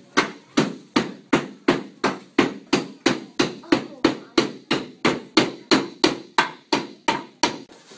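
A banana frozen rock-hard in dry ice used as a hammer, driving a nail with a rapid, even run of about twenty sharp knocks, roughly three a second.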